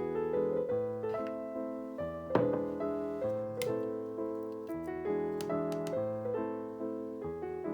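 Background piano music: a gentle melody of notes struck in a steady flow.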